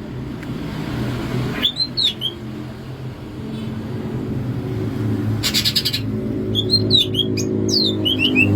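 Greater green leafbird (cucak ijo) singing in varied whistled phrases: a rising-then-falling pair of notes about two seconds in, a short rapid trill just past five seconds, then a run of quick downward-slurred whistles near the end. A low steady hum runs underneath.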